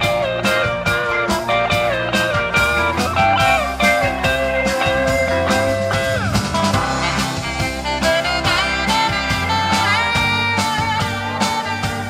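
Live rock band playing an instrumental passage: an electric guitar lead with bent notes over electric bass, drum kit and keyboard, on a steady beat.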